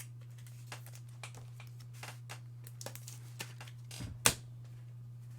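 Trading cards being handled and flipped through, with light clicks and slides of card against card, and one sharp knock about four seconds in. A steady low hum sits underneath.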